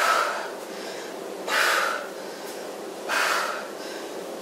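A woman breathing out hard three times, about a second and a half apart, once with each swing of a dumbbell Russian twist.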